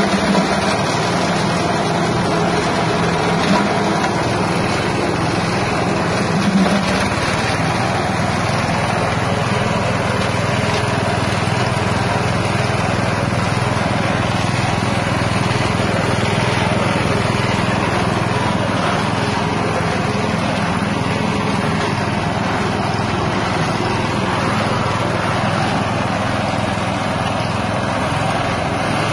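A 6.5 hp single-cylinder petrol engine running steadily under load, belt-driving a hammer mill that grinds fresh galangal root. A few louder knocks come in the first seven seconds as the roots are being ground, then it settles into an even run.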